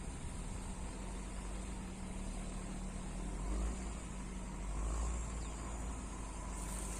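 Steady motor hum with a low rumble that swells twice, about halfway through and again a little later.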